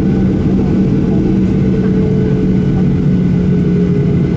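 Cabin noise of a Boeing 737-800 taxiing, with its CFM56-7B turbofans at idle: a steady low drone with a few steady whining tones above it.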